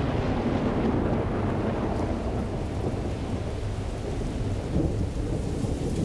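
Thunderstorm: thunder rumbling low and continuously under a steady hiss of rain.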